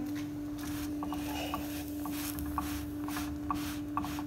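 Round of flatbread dough cooking on a lightly oiled pan: faint crackling, with small scattered ticks, over a steady hum.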